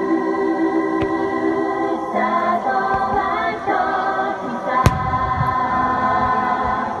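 Choral music with sustained, slowly changing chords. About five seconds in, a single sharp bang from a firework cuts through it.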